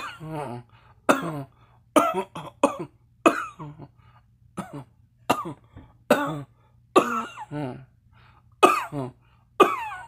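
A person coughing over and over: about a dozen sharp coughs, some coming in quick pairs and threes, each with a short tail that falls in pitch.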